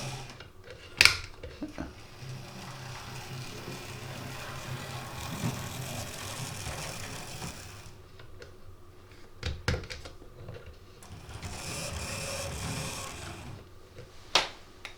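Oxford Rail OO-gauge Adams Radial 4-4-2T model locomotive running on track, its small motor and freshly greased gearing whirring steadily. The whirr fades about eight seconds in and picks up again later, with a few sharp clicks, the loudest about a second in.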